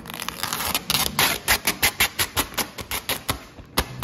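Vinyl wrap film worked by hand on a car panel: a quick run of sharp crackling snaps, about five a second, for a little over two seconds, then one more snap near the end.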